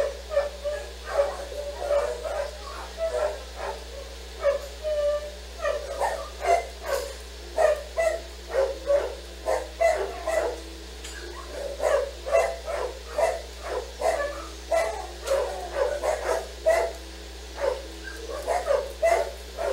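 A dog barking over and over in short, quick barks, two or three a second, with brief pauses.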